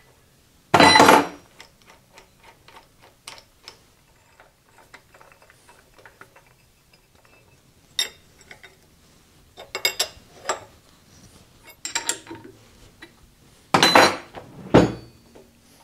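Steel lathe tooling being fitted and clamped: a wrench and a tool post extension clanking and clicking against a quick-change tool post. Separate metal knocks and ticks with quiet between, a strong one about a second in and a cluster of louder clanks near the end.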